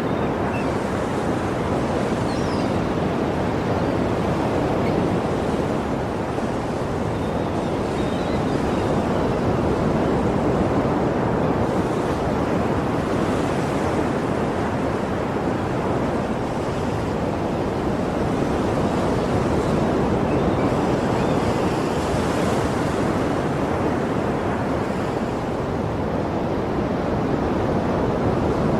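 Sea surf: waves washing in as a continuous rushing noise that swells and eases slowly, about every ten seconds.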